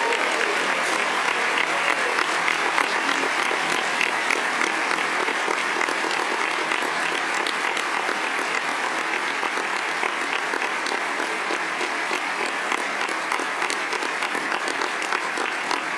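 Sustained applause from a large crowd giving a standing ovation, dense and steady, easing off slightly toward the end.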